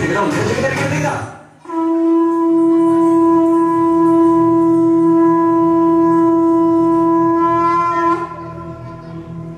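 A conch shell (shankha) blown in one long, loud, steady note of about six seconds, its pitch lifting slightly just before it stops. Dance music fades out before the note begins.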